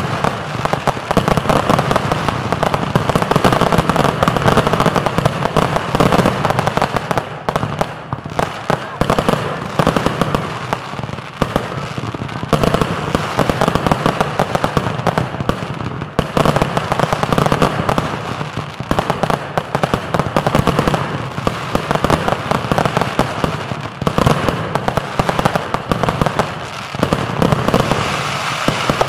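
Consumer fireworks firing without a break: a dense, continuous run of bangs and crackle from multi-shot items and their bursts overhead.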